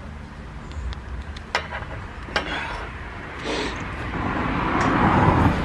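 Steady low rumble of distant road traffic, with a couple of small sharp clicks, and rustling that grows louder from about halfway through.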